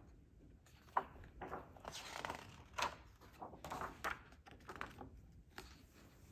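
Pages of a hardcover picture book being turned by hand: a sharp tick about a second in, then several soft paper rustles and swishes as the page is lifted and laid flat.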